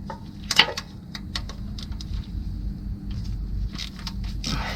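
Scattered sharp clicks and light metal clinks from a socket wrench working on the oil pump bolts, over a steady low hum.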